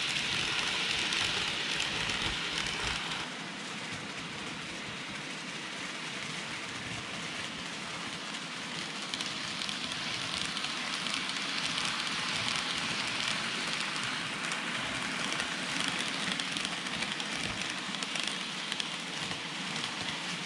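N gauge model trains (a Microace 811 series and a KATO 885 series) running on the layout's track: a steady rattling hiss of small metal wheels on the rails. It is loudest for the first three seconds as one train passes close, then drops and swells again as the other goes by.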